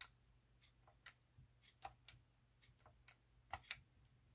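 Faint clicks of the rubber-coated keys on a Verifone Tranz 330 card terminal's keypad being pressed: about eight scattered presses, two a little louder about three and a half seconds in, over a faint low hum.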